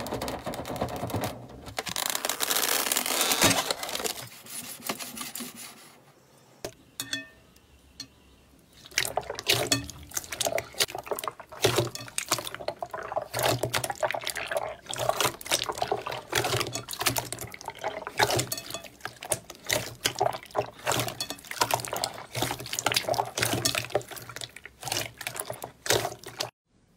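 Slime being squeezed and worked by hand: wet squelching, then a long run of quick irregular crackling pops. It cuts off abruptly near the end.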